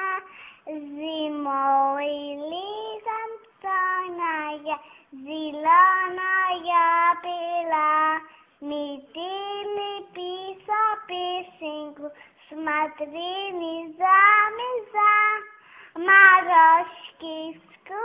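A young child singing a song in a high voice, phrase after phrase with short breaths between.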